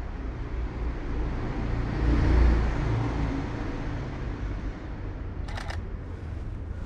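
Canon 5D Mark IV DSLR shutter firing a quick run of about three clicks about five and a half seconds in, over a steady low outdoor rumble that swells and fades around two to three seconds in.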